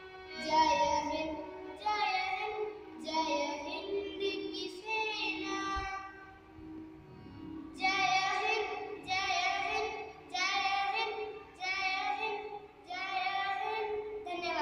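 A young girl singing a song in short sung phrases, accompanied by a harmonium holding steady notes underneath.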